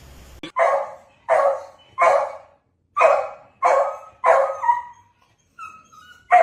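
A dog barking: six sharp barks in quick succession, then a short pause and one more bark right at the end.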